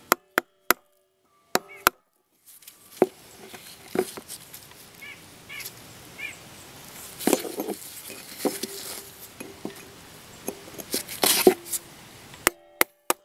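Hammer striking a chisel to split open the housing of an old Ford floor-mounted dimmer switch: a run of sharp, irregularly spaced knocks, a few at a time with pauses between.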